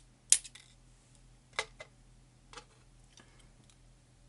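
Small metal lock pins and tweezers clicking as they are set down on a hard surface: a few light, sharp clicks spread irregularly, the first one the loudest.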